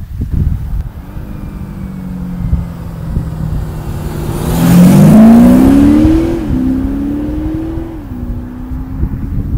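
Audi SQ5 TDI's 3.0-litre six-cylinder twin-turbo diesel accelerating hard past the microphone, loudest about five seconds in. The engine note climbs, falls sharply as it shifts up, climbs again and falls once more with a second upshift, then settles.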